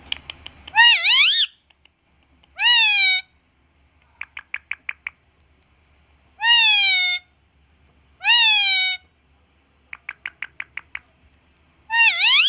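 Pet parrot mimicking a 'Maa' call five times, each drawn-out call dipping and then rising in pitch. Two quick runs of clicks come between the calls, the first a little after four seconds in and the second about ten seconds in.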